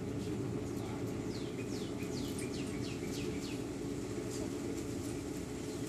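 A bird sings a run of quick falling notes, about three or four a second, for a couple of seconds starting about a second in, over a steady low outdoor hum.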